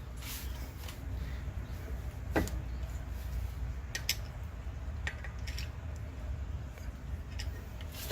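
About half a dozen short, sharp clicks and taps of a tool working the star-wheel adjuster of a 2007 Toyota Camry's rear brake, over a steady low hum.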